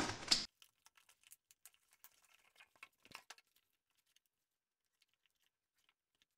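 A scatter of faint, irregular clicks and taps from small objects being handled, dying away after about three seconds into silence.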